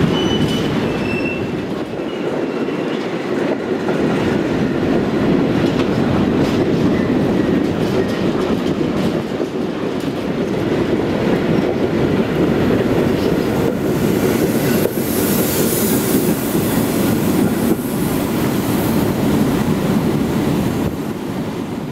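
Freight train of railway tank wagons rolling past: a steady rumble of wheels on the rails, with a faint squeal of wheels in the first second or two.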